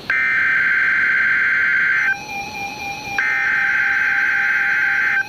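NOAA Weather Radio SAME header tones opening a Required Weekly Test. Two harsh, buzzing bursts of rapid two-tone digital data, each about two seconds long, come about a second apart. A faint steady tone fills the gap between them.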